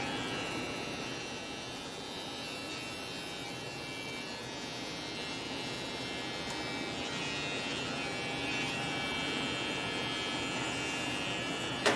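Wahl Detailer T-blade hair trimmer running with a steady electric buzz while it edges the short hair and sideburn around the ear.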